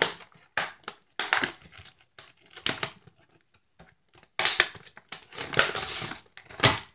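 Clear plastic bag of an RGB LED strip kit crinkling in irregular bursts as it is opened and handled, loudest about four and a half and six seconds in.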